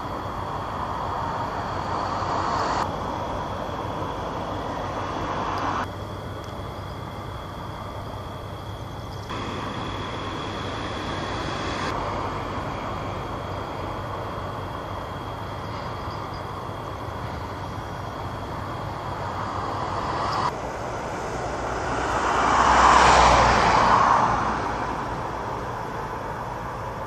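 Outdoor background noise in several short edited segments, then a vehicle passing close by, swelling and fading away near the end.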